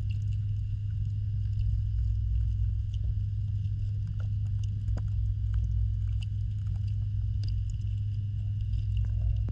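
Underwater sound in a backyard koi pond: a steady low hum with scattered faint clicks and ticks.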